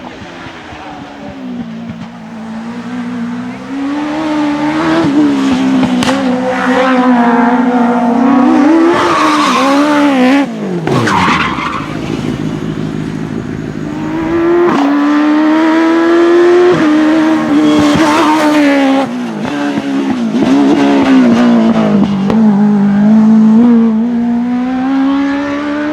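Race car engine revving hard, its pitch climbing and falling again and again as the car accelerates, lifts and changes gear through the slalom. About ten seconds in the revs drop steeply, then pick up sharply again a few seconds later.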